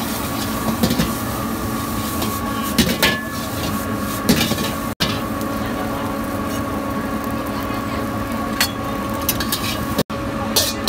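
Fried rice being stir-fried in a wok over a gas burner: a steady rush of flame and frying, with the metal ladle clinking and scraping against the wok now and then. The sound cuts out abruptly twice.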